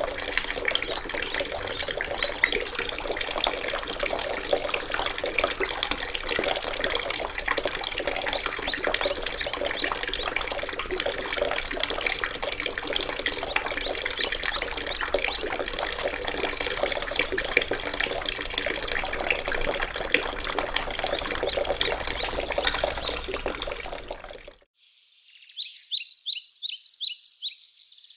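Water from a faucet-shaped garden fountain spigot pouring steadily into its terra cotta planter basin. It cuts off abruptly near the end, and a bird then chirps in a quick run of short notes.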